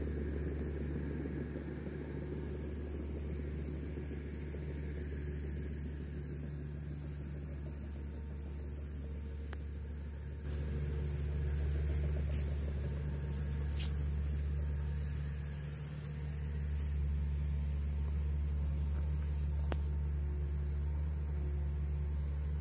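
A steady low mechanical rumble that grows a little louder about ten seconds in, under a steady high-pitched hum, with two faint clicks in the middle.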